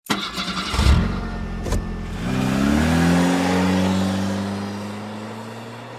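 A vehicle engine revs up, rising in pitch, then holds a steady note that slowly fades out; two sharp knocks come before it, the first the loudest.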